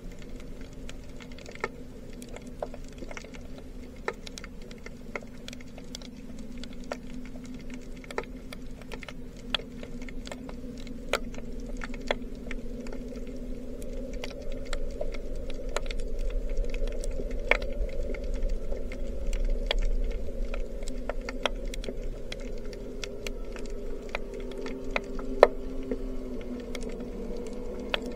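Underwater crackle of snapping shrimp on a rocky reef: scattered sharp clicks, a few a second, over a steady low hum. A deeper rumble swells in the middle, and one click is louder near the end.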